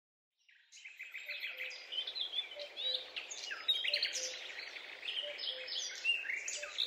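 A chorus of many small birds chirping and trilling together at dawn, with a few short low notes beneath; it fades in about a second in after silence.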